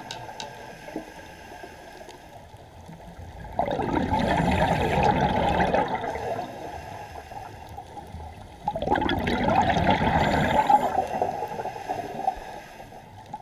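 Scuba regulator exhaust bubbles heard underwater: two swells of bubbling a few seconds long, about five seconds apart, in the rhythm of a diver breathing out.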